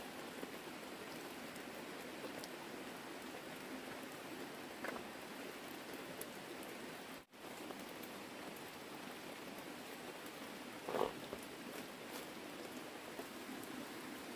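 Steady rain falling, an even hiss with scattered light drop ticks. The sound cuts out for an instant about halfway through, and a brief louder rustle comes near the end.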